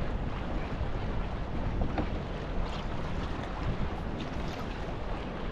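Steady wind buffeting the microphone over choppy seawater lapping at a kayak's hull, with a few faint light ticks.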